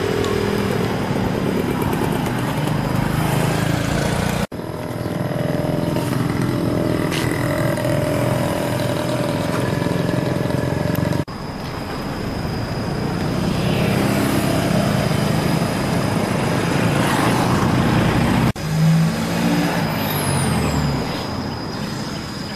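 Motor vehicle engines and road traffic running steadily, broken by abrupt cuts between clips, with a louder passing swell about nineteen seconds in.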